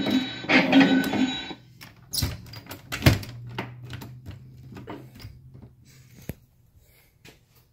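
Scattered clicks and knocks of a claw machine's metal cabinet and coin door being handled, over a low steady hum. A short repeating tune cuts off about a second and a half in, and the sounds fade to near silence near the end.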